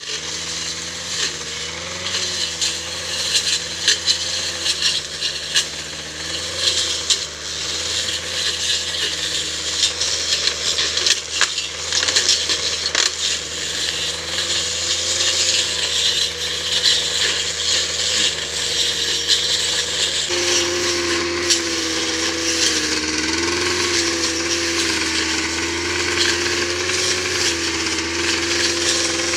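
Gasoline brush cutter running at steady high speed while cutting weeds and grass, with a dense crackle of sharp ticks from the cutting head striking vegetation. The engine note shifts abruptly about two-thirds of the way through and runs on.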